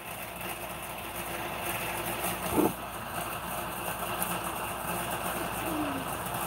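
Steady machine-like background hum, with a short low thump about two and a half seconds in.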